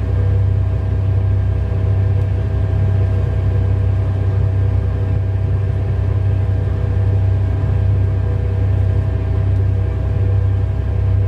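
Heavy diesel engine of a Komatsu HD785-7 haul truck running steadily: a deep, even drone with no revving and no knocks.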